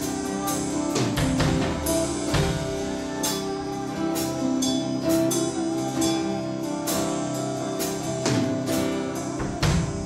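Live worship band playing an instrumental passage: strummed acoustic and electric guitars, keyboard and a drum kit keeping a steady beat with regular cymbal hits.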